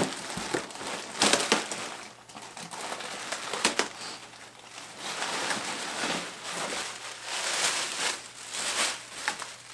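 Packaging crinkling and rustling as a hockey jersey is unwrapped and pulled out of its box, with sharper crackles about a second in and again near four seconds.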